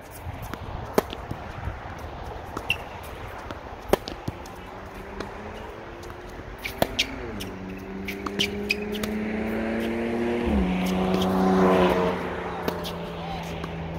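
Tennis balls struck with rackets, sharp pops every second or so, while a motor vehicle drives past. Its engine hum comes in about four seconds in, drops suddenly in pitch twice and grows louder, peaking near the end.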